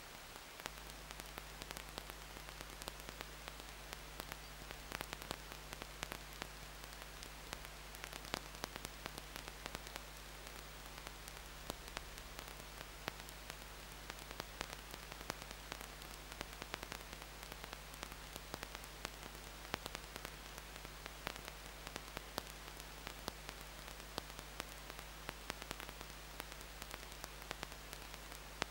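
Steady electrical hiss with a low mains hum that comes in about half a second in, and frequent crackling clicks: the noise of a nest box camera's audio line.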